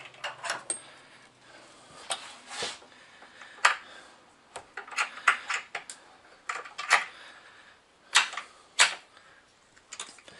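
Irregular sharp clicks and clinks of metal tools and hardware being handled, about a dozen knocks with quiet gaps between them, the loudest two near the end.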